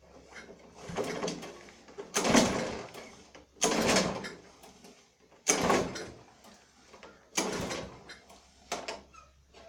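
Lawn mower's recoil starter cord pulled about five times, each pull a sharp rasping whir that fades away, with the small engine turning over but not catching: a no-start, which the owner puts down to too little gas in the tank.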